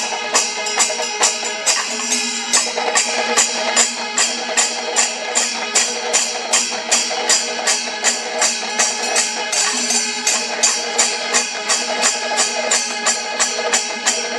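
Kerala chenda melam temple percussion ensemble: chenda drums and ilathalam hand cymbals clashing in a steady beat of about three strokes a second, over continuous held tones.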